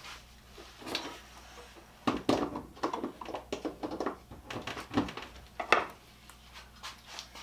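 Handling noise on a cluttered workbench: a run of knocks, clunks and clatter as objects are picked up and moved. It is busiest from about two seconds in to about six seconds in.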